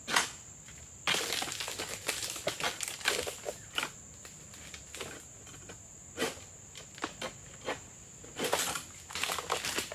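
Hard, dry oil palm fronds crackling and rustling as a long-poled egrek sickle is pulled through them at the crown of the palm. Many sharp crunches, with longer rustling bursts about a second in and again near the end.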